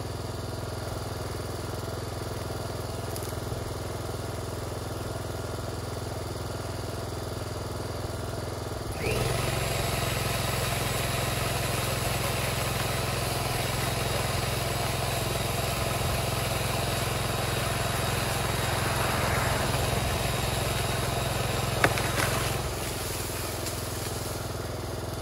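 A Honda 2800 generator runs steadily throughout. About a third of the way in, a Worx 10-inch electric pole saw starts up and runs for about fourteen seconds, cutting through a tree limb. There is a single sharp crack shortly before the saw stops.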